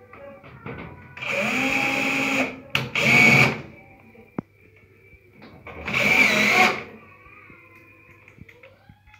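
Power drill running in three short bursts, the second brief and the third about three seconds after it, its whine shifting in pitch within each burst.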